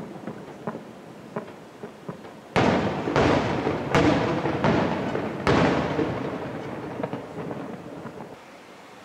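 Aerial firework shells bursting: faint crackling, then several loud booms in quick succession from about two and a half seconds in, their rumble echoing and dying away near the end.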